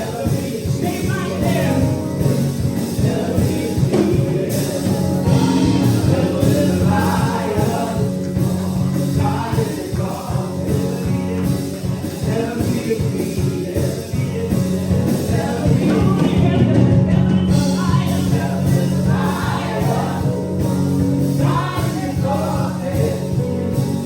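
Gospel music with a choir singing over a band with steady bass notes.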